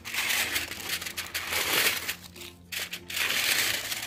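Aluminium foil crinkling as it is crumpled and peeled back off a plastic box: two long stretches of rustling with a short lull a little after two seconds in.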